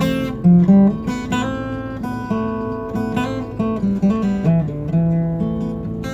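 Acoustic guitar played solo with no singing: picked notes over changing chords, a new note sounding several times a second.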